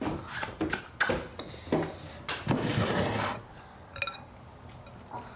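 Dishes and serving utensils clinking and scraping as food is dug out of a serving bowl, with one short ringing clink about four seconds in.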